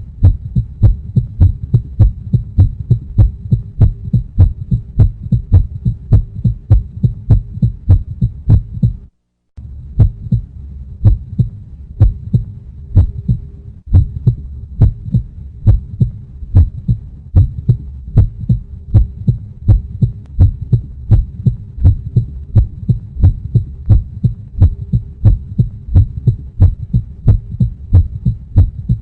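Heartbeat sound effect: a steady, regular rhythm of low thumps, cutting out briefly about nine seconds in before carrying on.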